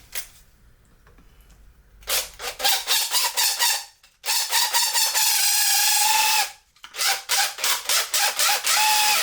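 Power drill with a long extension bit boring out the rod channel in a 3D-printed plastic part: its motor whines in short stop-start bursts, then runs steadily for about two seconds, then pulses again near the end.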